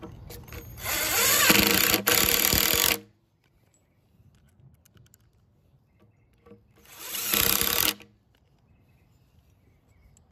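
Cordless drill driving quarter-inch by two-inch lag screws through a metal post base into a wooden post: two runs of the motor, the first about two seconds long and the second shorter, each stopping abruptly as the screw seats.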